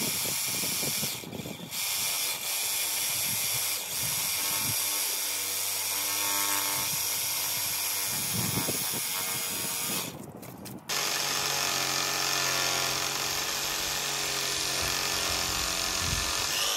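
Power saw running steadily as it cuts through an old wooden fence pole, with two short breaks, about a second in and about ten seconds in.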